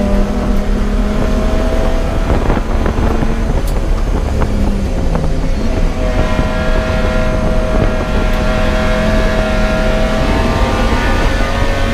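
Race car engine running hard at speed. Its pitch dips briefly about five seconds in, then climbs slowly through the second half as the car accelerates.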